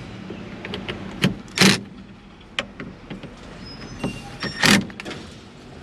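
Hand tools clicking and knocking on metal steering-column parts while the collar's Torx screws are driven in: two loud sharp clacks, about a second and a half in and again about three seconds later, with lighter irregular ticks between.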